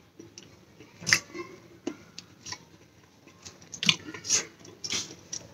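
Mouth sounds of a man eating hot cooked oats from a spoon: slurping from the spoon and chewing, with a handful of short, sharp lip smacks and clicks spread through.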